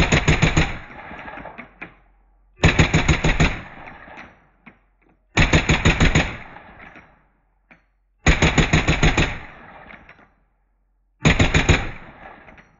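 Select-fire AR-15 with a SilencerCo Saker 556 suppressor firing five short full-auto bursts of several rapid shots each, spaced about three seconds apart, each burst trailing off in a fading echo. A few light clicks fall between the bursts.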